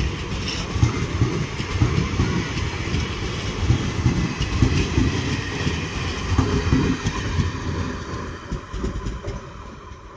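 Indian Railways passenger train's coaches rolling past close by, wheels rumbling and clacking over the rail joints. The sound fades over the last few seconds as the last coach goes by and the train draws away.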